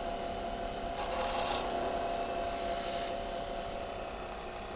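Abrasive scraping against a cast silver ring, taking down its high spots, with a brief brighter stretch about a second in. A steady hum runs underneath.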